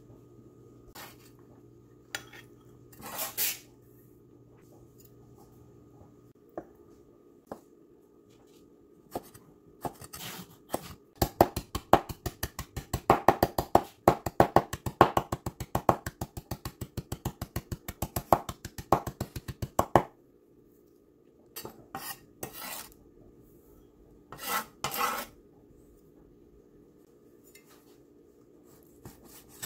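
Chinese cleaver chopping on a bamboo cutting board: a few scrapes and knocks of the blade, then a run of rapid chops, several a second, for about nine seconds, then a few more scrapes near the end.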